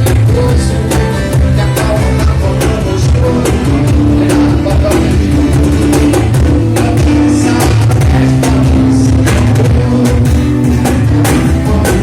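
A band playing with guitar, drum kit and a singing voice, with a steady drum beat under sustained bass notes.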